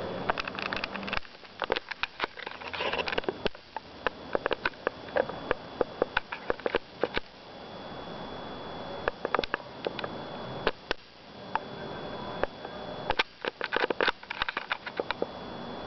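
Irregular clusters of sharp clicks and rustles from hands on the camera while it is reframed and zoomed, over a low hiss and a faint steady high whine.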